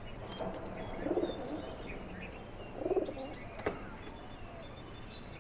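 Pigeons cooing, two low calls about two seconds apart, with faint chirps of small birds.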